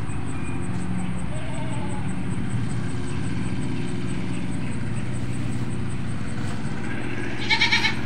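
Steady low motor hum, with faint farm-animal bleats about a second in and a louder, wavering bleat near the end.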